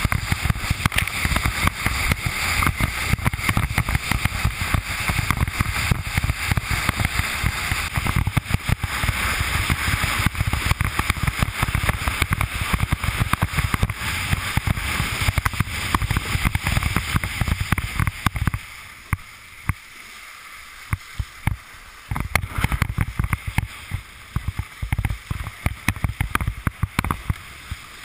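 Wind buffeting the microphone over the rush and hiss of water as a Fanatic Falcon 104 windsurf board planes at speed. The noise drops away for about three seconds about two-thirds through, then the gusty buffeting comes back.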